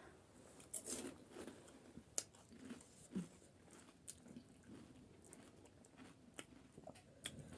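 Quiet close-up eating sounds of panipuri: crisp puri shells crunching and chewing, with scattered small clicks and smacks at irregular moments.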